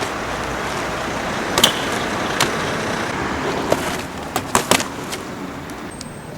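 Steady road-traffic noise that eases off after about four seconds, with a few sharp clicks and knocks scattered through it.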